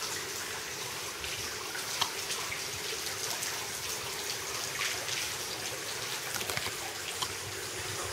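Steady trickle of running water from the villa's entrance water feature, with a few faint clicks.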